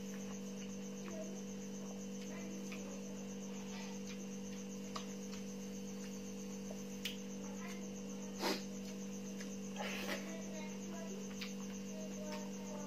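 Steady electrical hum under a continuous high-pitched pulsing chirr, with a few soft clicks and smacks of eating by hand from a steel plate, the loudest about eight and a half seconds in.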